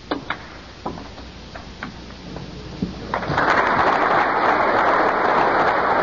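Snooker cue tip striking the cue ball, a sharp double click at the start, then a few more clicks of balls knocking together over the next two seconds. From about halfway through, the audience applauds the shot.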